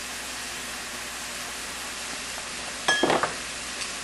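Chopped onion and garlic sizzling steadily in butter in a hot cast-iron Dutch oven on medium-high heat, sweating before the chicken goes in to sear. About three seconds in, a brief ringing clink cuts over the sizzle.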